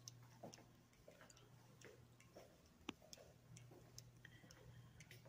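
Near silence: a faint steady low hum of room tone with faint, irregular light ticks about twice a second, one slightly louder near the middle.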